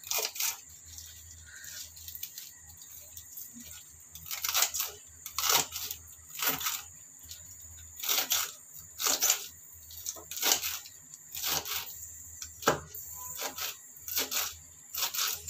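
Kitchen knife chopping fresh celery leaves and stalks on a hard board. Crisp single cuts come about once a second, a little unevenly.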